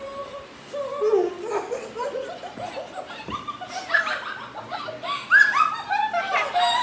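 A group of women and girls laughing together, several at once, getting louder in bursts in the second half.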